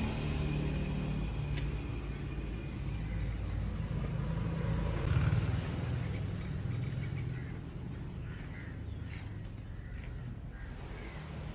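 Low rumble of a motor vehicle on a road, loudest about five seconds in, then fading.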